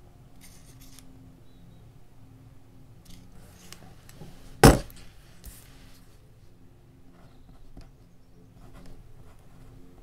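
Steel digital caliper clacking shut with one sharp metallic click about halfway through, followed by faint scratching of a mechanical pencil writing on a paper card.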